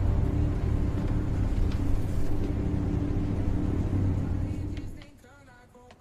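An engine running with a heavy, steady low rumble, which drops away about five seconds in; faint music follows.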